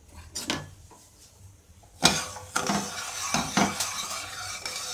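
A metal spoon stirring sugar and water in a stainless steel pot, scraping the undissolved sugar grains against the bottom in repeated strokes from about two seconds in, after a couple of light knocks. This is sugar being dissolved at the start of making sugar syrup.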